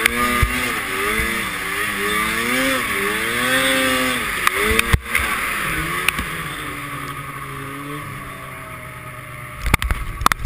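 Arctic Cat M7's two-stroke twin engine revving up and down as the sled ploughs through deep powder. About six seconds in it settles to a steadier, lower note and eases off. A few sharp knocks come near the end.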